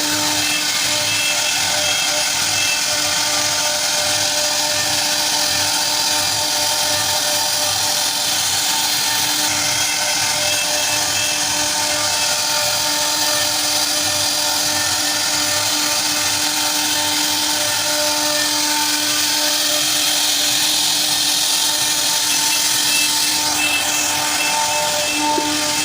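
CNC router spindle running steadily with a constant whine, its bit cutting into wood.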